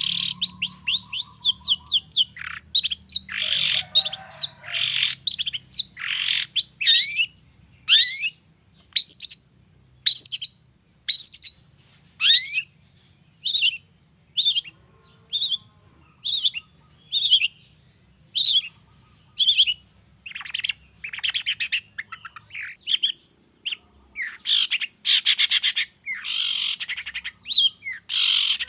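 Long-tailed shrike (cendet) calling: a run of sharp, rising whistled notes about one a second, with stretches of harsh, scratchy chattering calls a few seconds in and again through the last third.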